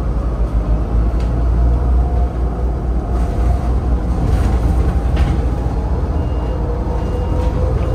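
Cabin sound of a battery-electric low-floor bus under way: a steady low road rumble with the electric drive motor's whine rising in pitch as the bus picks up speed.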